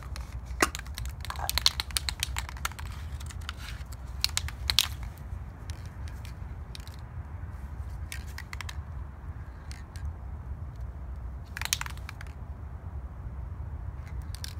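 Scattered clicks, crinkles and rustles of hands handling a spray-paint can and a paper stencil on cardboard, loudest and busiest in the first five seconds, then only now and then. A steady low rumble runs underneath.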